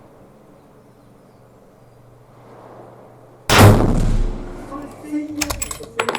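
A single rifle shot about three and a half seconds in, loud, with a reverberating tail of about a second. Sharp metallic clicks and clinks follow near the end.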